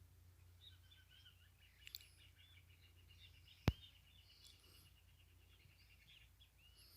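Faint chorus of small birds chirping and calling, with many short chirps running together. A single sharp click stands out about halfway through, over a steady low hum.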